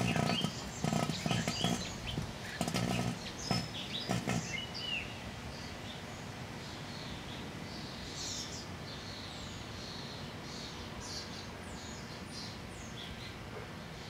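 Microwave oven running with a giant Bic butane lighter burning inside it: irregular sputtering bursts for the first four or five seconds, then a steady hum. Birds chirp through the second half.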